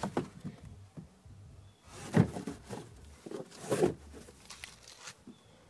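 Dull knocks and rustling from handling the trunk floor cover over the spare-tire well. The loudest knock comes about two seconds in, and another just before four seconds.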